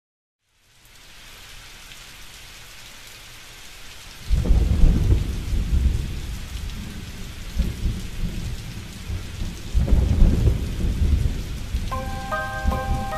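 Steady rain falling, fading in after a moment of silence, with two long rolls of thunder, about four and ten seconds in. A soft chiming tune begins near the end.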